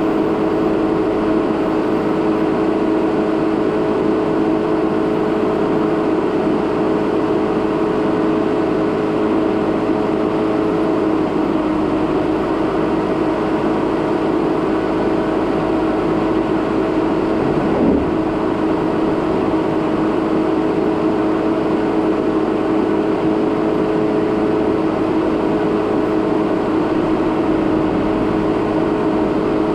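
2017 Jeep Renegade Trailhawk driving slowly over a rough dirt trail: steady engine and tyre noise with a constant hum. There is a single short bump about 18 seconds in.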